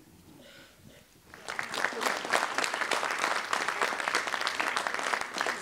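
Audience applauding in a hall, starting about a second in and carrying on steadily.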